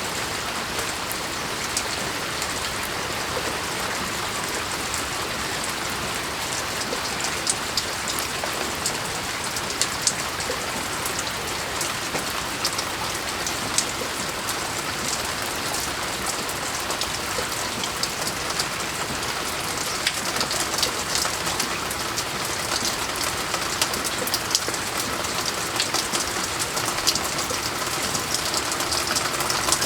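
Moderate rain falling steadily, with many sharp drop and drip impacts scattered through it that become denser and louder in the second half.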